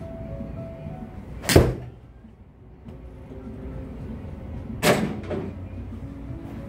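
Two sharp strikes of a golf iron on the ball about three and a half seconds apart, the second followed by a smaller knock, over background music.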